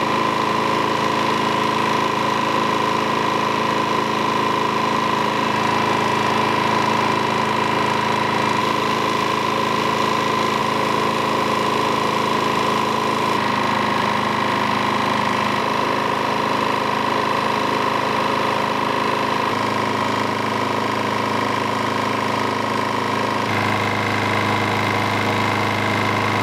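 Craftsman push mower's small single-cylinder engine running steadily at a constant speed, its oil half replaced with Dura Lube; the engine has a knock and low compression.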